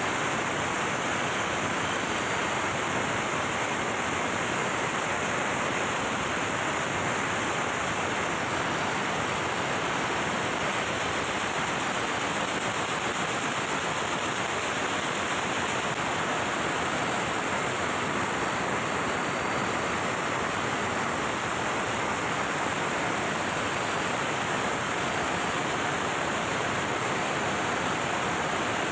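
MAN B&W auxiliary diesel generator engine running, heard as a steady, even engine-room noise with no distinct beat.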